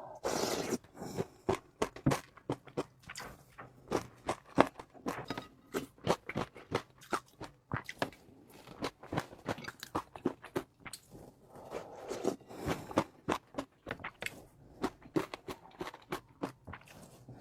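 Close-up eating sounds: a person biting and chewing, with many quick, irregular crunches and clicks.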